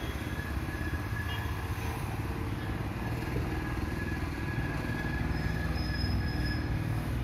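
Steady low rumble of a small truck's engine running as it moves, with a faint thin whine above it.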